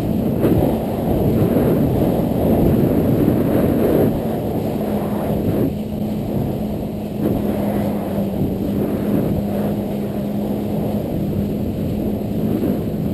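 Yamaha WaveRunner jet ski engine running steadily at speed: an even engine drone under a loud, rough rush of wind and water.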